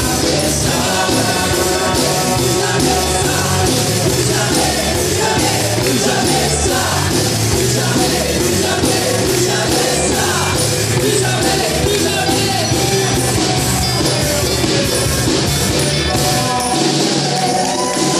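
A live band playing loudly: electric and acoustic guitars, keyboards and djembe hand drums, with a voice singing. About a second before the end the bass drops out and a held note carries on.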